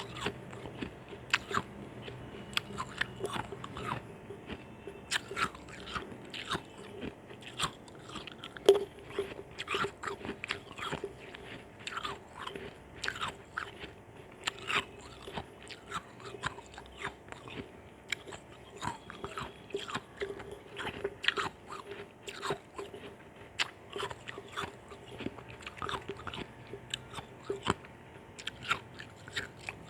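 A person biting and chewing ice chunks close to the microphone: a steady run of sharp, irregular crunches, several a second, the loudest about nine seconds in.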